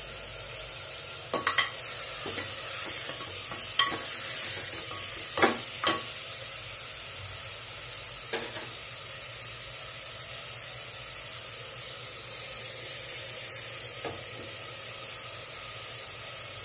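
Mutton pieces frying in hot oil in an open aluminium pressure cooker, searing until the meat turns from red to white: a steady sizzle, with a few sharp ticks in the first half and a couple later.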